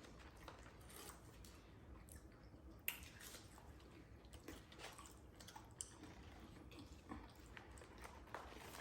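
Faint chewing and small mouth clicks of people eating fast food, with a few sharper little clicks about three and six seconds in.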